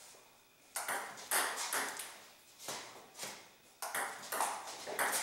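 Table tennis rally: the ping-pong ball clicking off the paddles and the table, about two hits a second, starting just under a second in, each hit trailing off in a short echo.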